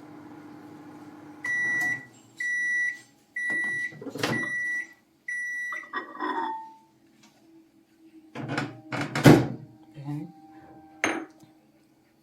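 Godrej Eon microwave oven running with a steady hum while heating water, which stops about a second and a half in. It then beeps five times, about once a second, to signal the end of the heating cycle. After that come several knocks and clatters.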